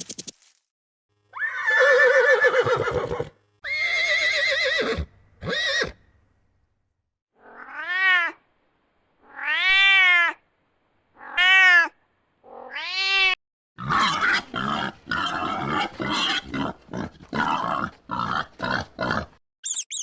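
A series of animal calls with pauses between them: a few calls at the start, then four pitched calls that each rise and fall, then a quick run of short calls near the end.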